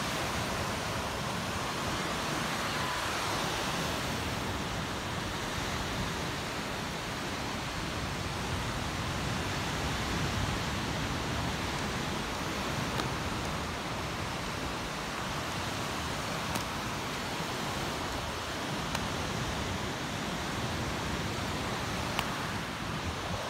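Surf breaking on a sandy beach: a steady, even wash of noise, with a few faint clicks.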